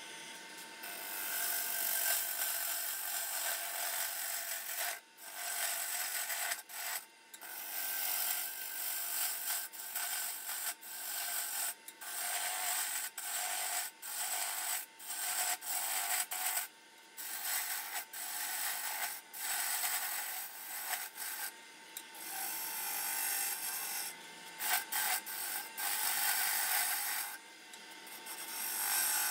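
Turning gouge cutting the outside of a spinning red cedar blank on a wood lathe, shaping it from a cylinder toward a vase: a steady hissing scrape of the cut, broken by many brief gaps between passes.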